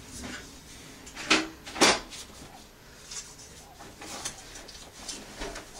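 Sheet-metal camp-stove accessory pieces knocking and clinking as they are handled and pulled from a carry bag: two sharp knocks about a second and a half and two seconds in, then a few lighter clicks.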